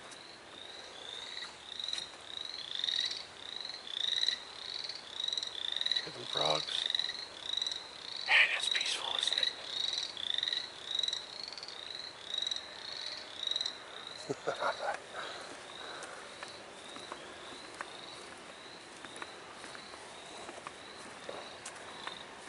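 A frog calling in a fast series of short, high chirps, about two a second, which fade out past the middle. A few brief, louder sounds break in about six, eight and fourteen seconds in.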